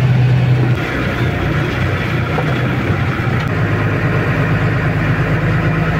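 A heavy goods truck's diesel engine running at low speed, heard from inside the cab as a steady low drone.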